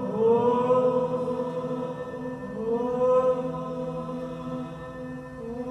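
Wordless improvised singing layered with a live vocal loop: a voice holds long notes, each sliding up into pitch, over a steady bed of lower held vocal tones. New notes come in at the start and again about two and a half seconds in.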